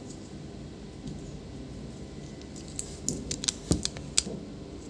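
About ten small sharp clicks over a second and a half in the second half, from a precision screwdriver turning a hinge screw into a laptop's hardened, filler-rebuilt plastic hinge mount, over a low steady room hum.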